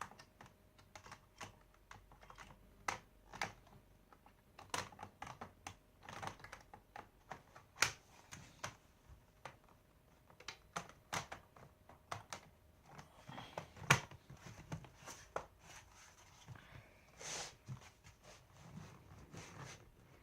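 Irregular small clicks and taps of plastic and metal as a laptop's plastic back plate is fitted and its screws are set and driven, with a couple of sharper knocks along the way.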